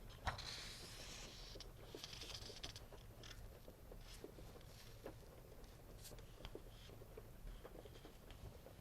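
Faint paper rustling and crinkling as coloring book pages are handled, in irregular bursts with small ticks, and one sharp tap just after the start.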